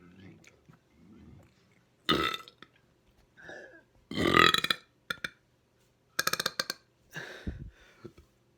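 A person burping deliberately, a string of about five or six loud burps with short gaps between, the longest and loudest about halfway through and a rattling one a little past the middle.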